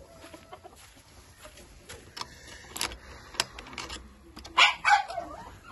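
Wire-mesh chicken coop door and its metal latch rattling and clicking as it is handled, with two louder rattles near the end.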